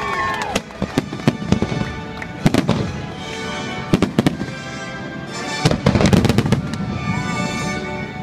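Fireworks going off in a series of sharp bangs and crackles, several close together, over a music soundtrack playing with held notes.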